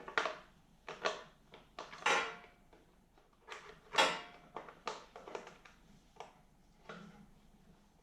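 Hard small parts and hand tools being handled and set down on a workbench: irregular clicks, taps and clatters, the loudest about two and four seconds in with a brief metallic ring.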